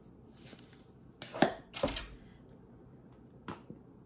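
A salt canister being handled: a few short clicks and knocks, the loudest about a second and a half in and one with a dull thud just after, as the last salt is shaken out and the canister is set down on the table.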